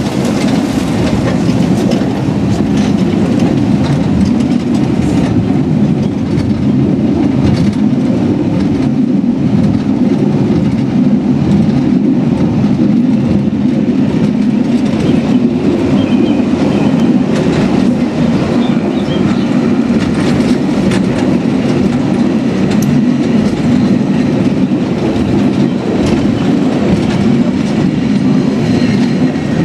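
Lynton & Lynmouth Cliff Railway car, a water-balanced funicular, running up its steep track: a steady wheel-on-rail rumble with scattered light clicks.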